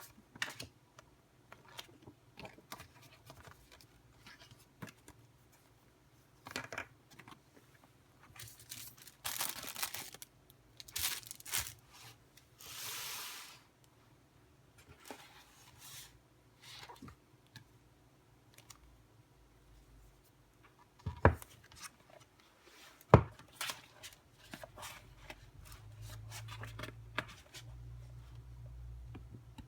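Packaging being torn open and handled: short tearing rasps, plastic and paper rustling, and small clicks and taps, with two sharper knocks about two-thirds of the way through and a low rumble near the end.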